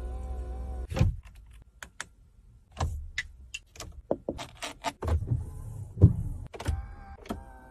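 Hongqi E-HS9 cabin controls and mechanisms in operation: a string of sharp clicks and taps, with a small electric motor whining for about the first second and again near the end.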